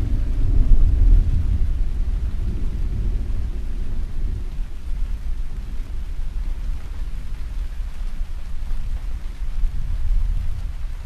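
Thunder rumbling over steady rain. The deep rumble is strongest in the first few seconds, then dies away, leaving the even hiss of rain.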